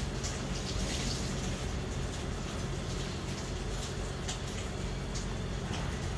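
Steady city background noise: a low hum under an even hiss of distant traffic, with a few faint ticks. There is no thunder.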